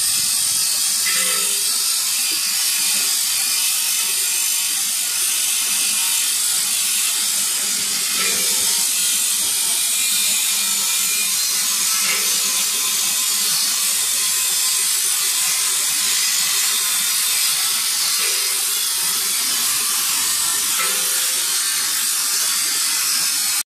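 Steady hissing noise of workshop machinery, with a few faint knocks now and then.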